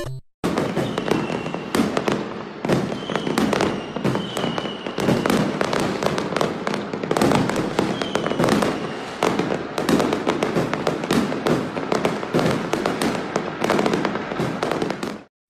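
Fireworks going off in a dense, continuous run of bangs and crackles, with a few faint short high whistles among them.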